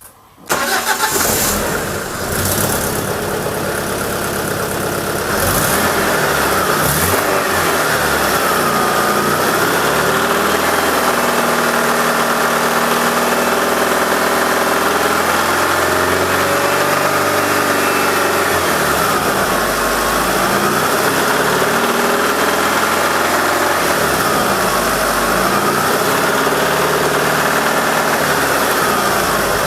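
Alfa Romeo 166 2.0 Twin Spark four-cylinder engine running loud with the bonnet open, its revs rising and falling several times. It is being run to bring out a knock and crackle from the top of the engine that comes at transitional revs; the mechanic says it sounds like connecting rods.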